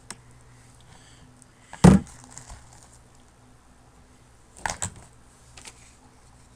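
Items and their packaging being handled by hand, with some crinkling: a loud knock about two seconds in, a quick cluster of clatters a little before five seconds, and a smaller one shortly after.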